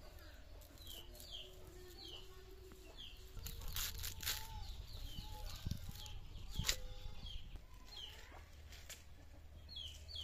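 Crisp snaps and rustling of spinach stems being cut against an upright boti blade, the sharpest about four and six and a half seconds in. Over it, a bird repeats short falling chirps and chickens cluck.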